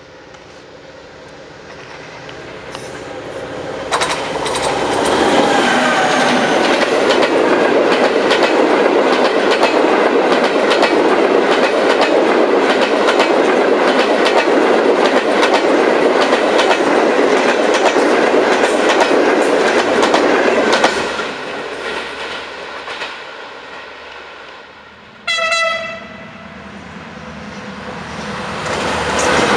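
Diesel locomotive-hauled passenger train approaching and passing close at speed, a loud steady rumble with the rapid clickety-clack of wheels over rail joints. After it fades, a single short horn blast, then another train approaching near the end.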